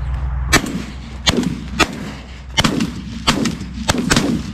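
Shotguns fired at flushing pigeons in a rapid volley of about seven sharp shots, irregularly spaced over about four seconds.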